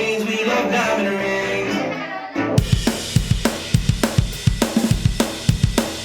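Dance music: a held, melodic intro, then about two and a half seconds in a drum-kit beat starts, with kick and snare hits about three to four times a second.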